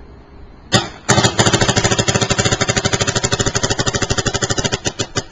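Planet Eclipse Ego 09 paintball marker firing: a single shot, then a rapid, even string of shots for nearly four seconds, then a few last single shots.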